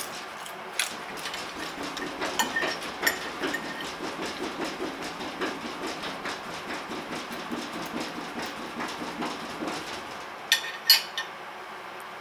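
A dog eating, with small wet chewing clicks throughout, and two sharp clinks of a metal fork against a plate near the end.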